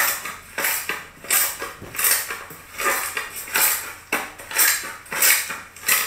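Pink slime kneaded and pressed by hand, with a short crackling squish at each press, repeating about one and a half times a second.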